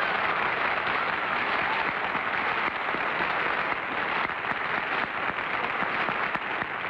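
Studio audience and panel applauding steadily, a dense wash of clapping that eases slightly near the end, heard through an old broadcast recording with the highs cut off.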